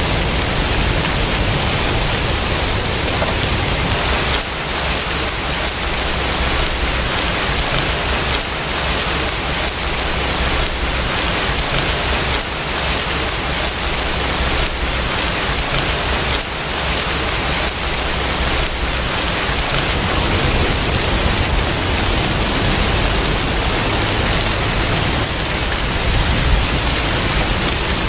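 Steady heavy rain, with a low rumble underneath that is strongest in the first few seconds and again from about twenty seconds in.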